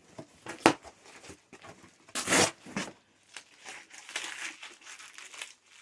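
A parcel's packing tape and paper being torn open by hand: irregular crinkling and ripping, with a sharp snap just under a second in and a louder rip a little over two seconds in.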